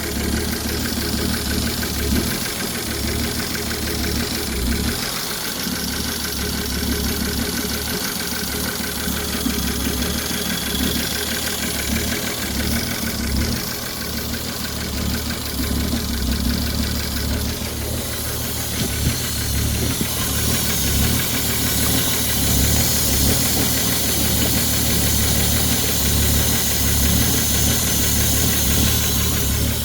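Ford 3.5 EcoBoost twin-turbo V6 running steadily with a rapid, regular knock: rod knock from a worn connecting-rod bearing.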